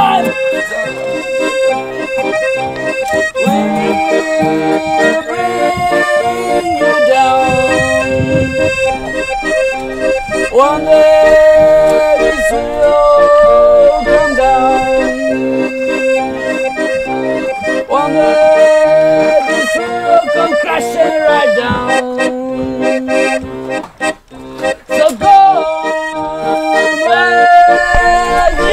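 Accordion playing an instrumental passage of a song, sustained chords under a moving melody line, with no singing. It cuts out for a moment about three-quarters of the way through, then comes back in.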